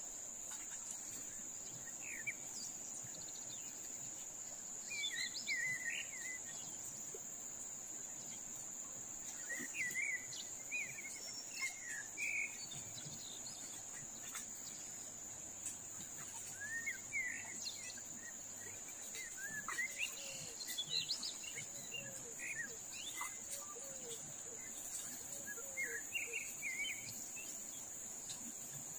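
A steady high-pitched drone of insects, with birds chirping in short scattered bursts and a few lower, falling calls in the later part. Under them there is an even rush of flowing river water.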